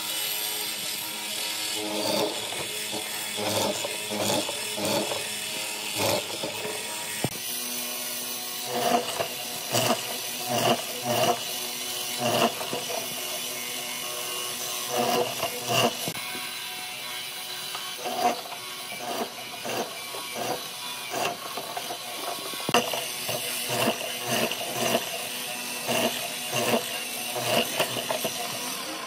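Hollow-chisel mortiser running steadily while its square chisel is plunged again and again into a wooden rail, boring out square mortises. Each plunge gives a short crunching knock as chips are cut out, one or two a second, irregularly.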